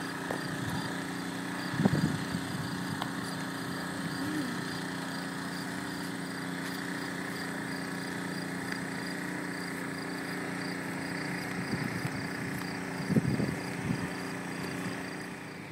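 A motor running steadily with a constant low hum, with a brief louder sound about two seconds in and again near the end.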